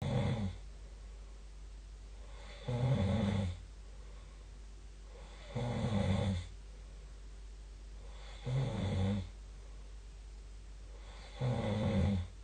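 Snoring: one snore about every three seconds, five in all, each lasting under a second.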